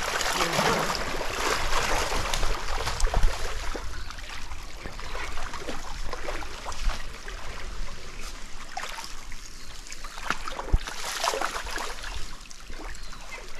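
Wading through a shallow stream: water sloshing and splashing around waders in irregular strokes, over the steady rush of the current. The splashing is heaviest about a second in and again near the end.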